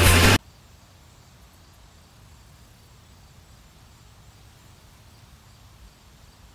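Music cuts off suddenly a fraction of a second in, leaving faint outdoor ambience in a grassy field: a low, even background noise with a faint steady hum of insects.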